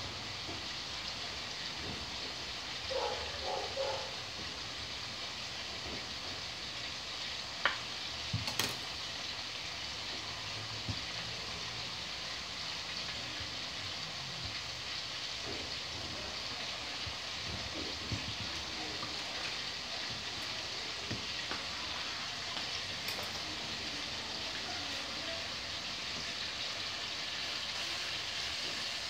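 Chicken drumsticks and thighs frying in a pot on high heat, a steady sizzle as they brown. A few sharp knocks of kitchen utensils come about eight seconds in.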